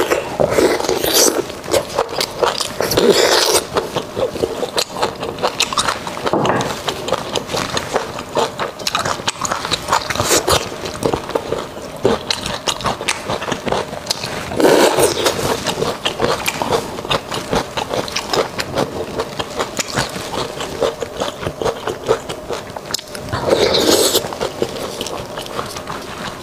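Close-miked eating sounds from a spicy-sauced beef marrow bone: sucking the marrow out of the bone, with wet smacking and chewing clicks throughout and louder sucking bursts every few seconds.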